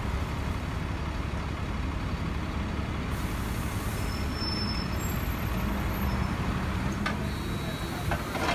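Scania OmniCity double-decker bus pulling in to a stop, its diesel engine running with a steady low rumble. A brief, thin, high tone sounds about halfway through.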